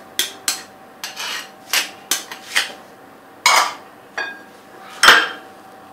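Plastic spoon scraping and tapping against glass bowls as ketchup is scraped out: a string of short scrapes and clinks, about two a second, with two louder scrapes in the second half.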